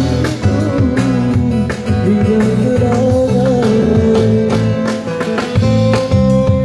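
Live busker band: strummed guitar over a stepping bass line, with a voice singing long held notes.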